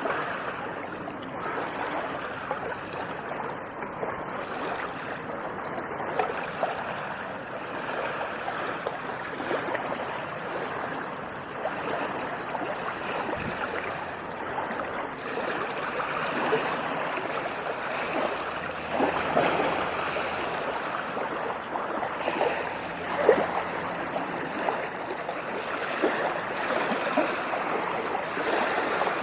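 Water lapping and splashing steadily, a continuous wash with many small irregular splashes and gentle rises and falls in level.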